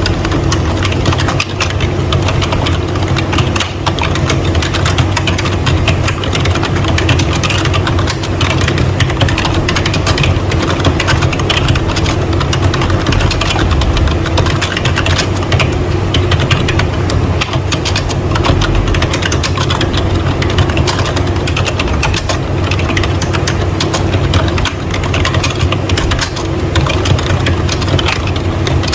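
Rapid typing on a membrane keyboard: a dense, continuous stream of key clicks over a steady low hum.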